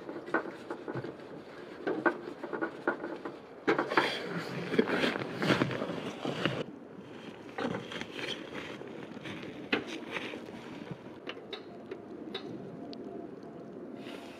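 Camping gear being handled in snow: clunks, clicks and rustles as a small portable propane heater and its propane cylinder are picked up and moved. A louder stretch of crunching and rustling comes in the middle, then quieter scattered clicks as the heater is set down.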